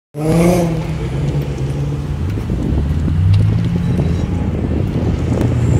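Nissan VQ V6 engines with aftermarket cat-back exhausts and test pipes running loud, their deep exhaust note shifting up and down in pitch, with a short rev just after the start.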